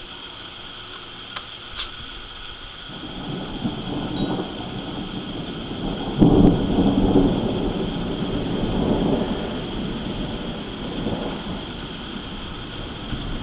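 Thunder: a low rumble builds about three seconds in and breaks into a sudden, louder peak about six seconds in. It then rolls on and slowly fades over the following several seconds.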